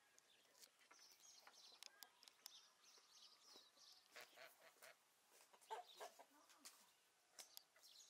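Domestic poultry clucking and calling faintly in short scattered calls, the strongest about halfway through, with faint high chirps of small birds.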